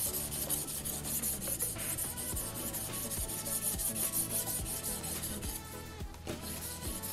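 Coarse abrasive stone on a guided knife sharpener rubbing back and forth across the steel edge of an ice drill blade in quick strokes, pausing briefly near the end and then starting again.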